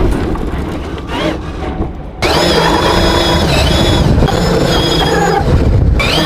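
Toy off-road RC car's electric motor and gears whining under rumbling wheel noise. The whine eases off and dips between about one and two seconds in, then comes back suddenly about two seconds in, rising in pitch, and does so again near the end.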